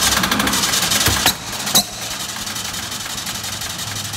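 Supercharged 1967 VW Beetle air-cooled 1600 flat-four running on its first start with the throttle worked by hand at the carburettor. It is louder for the first second or so, with two sharp backfire cracks about a second and a second and a half in, then settles to steadier, quieter running. The backfiring led the owners to believe the ignition timing was a bit out.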